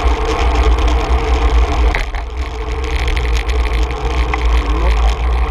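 Wind buffeting a handlebar-mounted GoPro on a moving bicycle, a heavy steady rumble with tyre and road noise, a steady hum under it and a couple of light clicks.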